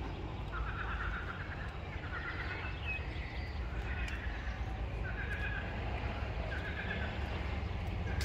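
Frogs croaking in chorus: short rattling calls, one every second or so, with a steady low rumble underneath.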